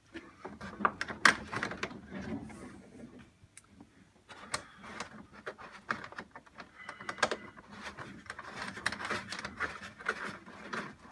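Hands fitting a bolt, metal rings and a nut through the holes of a paper sculpture's seam: scattered light clicks and knocks over a rustling handling noise.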